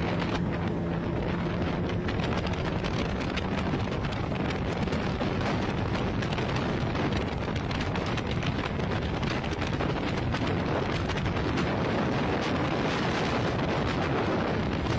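Wind blasting the microphone on a moving motorboat: a loud, steady rush with constant buffeting, and a low hum beneath it for the first few seconds.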